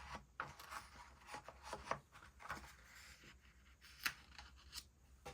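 Sheets of paper rustling and scraping as they are slid into the paper slot of a plastic three-hole punch, with scattered light clicks. Two sharper clicks come about four seconds in and just before five.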